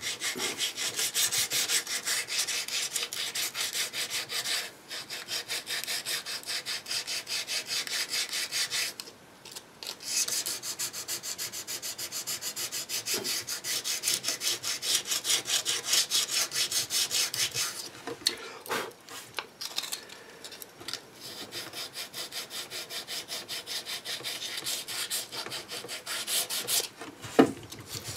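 Hardened Bondo body filler on a Bakelite radio case being rubbed down by hand in fast, even back-and-forth strokes, several a second, stopping briefly a few times. A single sharp knock near the end.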